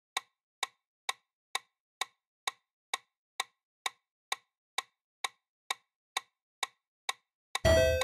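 Clock-like ticking sound effect of a quiz countdown timer, a sharp tick about twice a second. Near the end, a louder short ringing sound effect with several tones marks the answer reveal.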